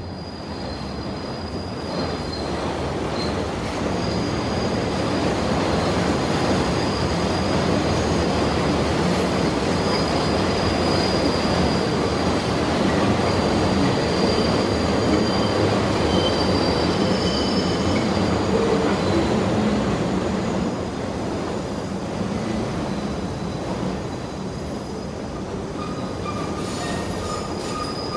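New York City subway train running on an elevated section of track: a continuous rumble of wheels on rail, with drawn-out high-pitched wheel squeal above it. It swells over the first few seconds and eases a little about two-thirds of the way through.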